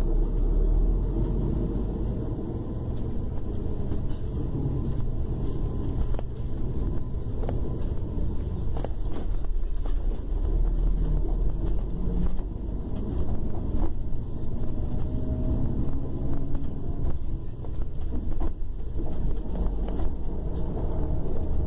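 A long-distance double-decker coach's diesel engine idling with a steady low rumble, a few faint clicks and knocks over it.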